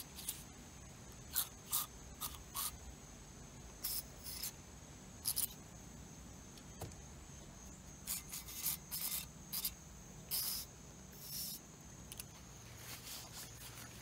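Short hissing bursts of aerosol carb cleaner sprayed through a straw into the oil ports of a BMW VANOS solenoid, about a dozen squirts, some in quick runs, flushing out oily gunk. A steady high insect chirr runs underneath.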